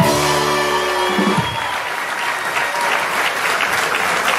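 Audience applauding and clapping. A held music chord sounds over the applause for the first second and a half, then cuts off.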